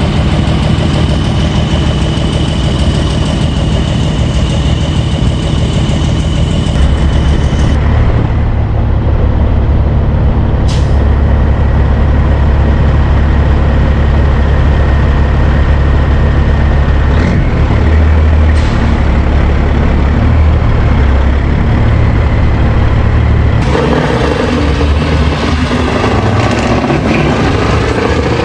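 Heavy diesel truck engines running, in a string of clips with abrupt cuts between trucks. From about 8 seconds there is a deep, steady low rumble, and in the last few seconds a rougher, busier engine sound.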